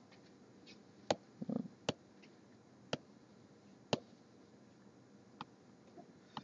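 A stylus tapping on a tablet's touch screen: about six sharp, separate taps, roughly a second apart.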